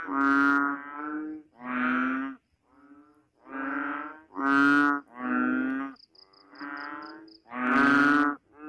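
A frog calling in a run of short, buzzy calls, about one a second, each a rich tone with many overtones. A brief series of quick high pips sounds around six seconds in.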